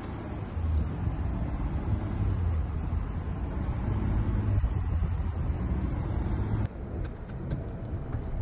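Lifted pickup truck driving slowly through deep snow: a steady low engine rumble with its tyres working through the snow. The sound changes abruptly near the end.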